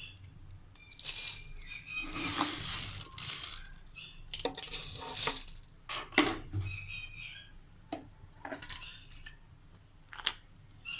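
Spoonfuls of sugar tipped into a blender jar: a few short pours of granules, with scattered clicks and knocks of the spoon against the jar.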